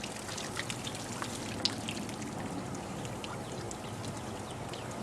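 Pressurised water still spraying and spattering from a quarter-inch hole in a pipe that is only partly covered by repair wrap: a steady hiss of water with many small drips and splashes. The leak is not yet sealed.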